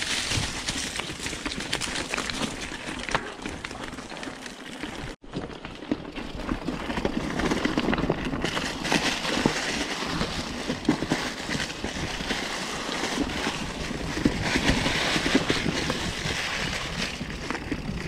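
Mountain bike rolling fast down a dirt trail strewn with dry leaves: a steady rush of tyres on the ground with many small clicks and rattles from the bike over roots and rocks, broken by a brief gap about five seconds in.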